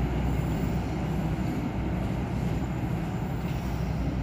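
A train rolling along the rails, a steady rumble with no distinct clicks or squeals.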